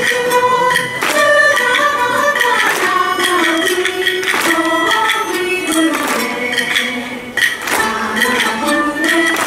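Live Minshingaku (Ming-Qing-style Chinese music) ensemble playing: a stepping melody with singing over plucked round-bodied lutes, marked by regular percussion strikes.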